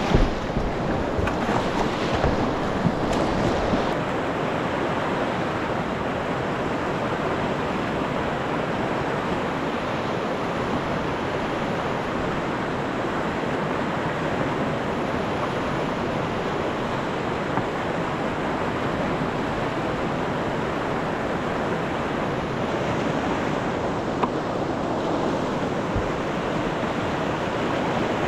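Rushing white water of a river rapid: a steady, loud wash of water pouring over rocks. In the first few seconds, kayak paddle strokes splash and knock close by.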